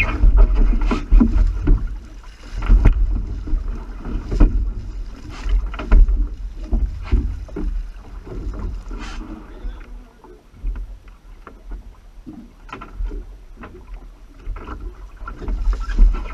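Loud boat-at-sea noise: a heavy low rumble with irregular knocks and splashes, and wind on the microphone, quieter in the middle and busier again near the end.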